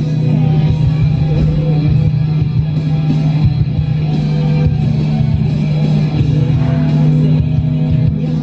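A song with singing playing on the car's satellite radio, heard inside the car.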